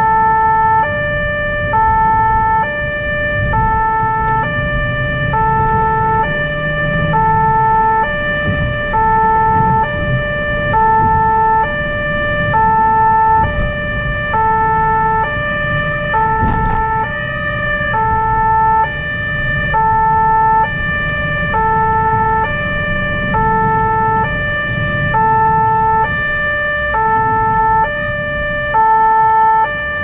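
Two-tone emergency siren on a blood-transport car, switching steadily back and forth between a high and a low note about every two-thirds of a second. Under it is the low rumble of the car's engine and road noise as it drives on an urgent run.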